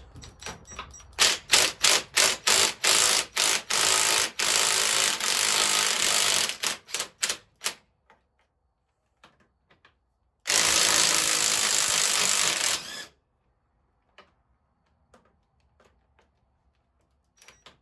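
Cordless impact wrench hammering on the 22 mm fork cap bolts of a 1996 Honda XR250R to break them loose. It starts as a string of short blips that run together into a continuous hammering, stops about eight seconds in, then hammers again steadily for about two and a half seconds.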